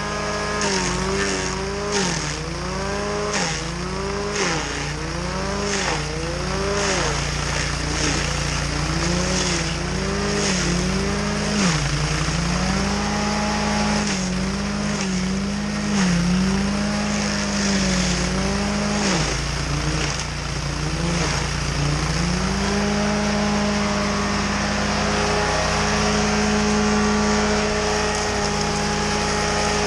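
Petrol engine of a piece of tree-work machinery running hard. Its pitch dips and recovers about once a second, as the machine is loaded and eased off repeatedly. About two-thirds of the way through it settles to a steady high speed.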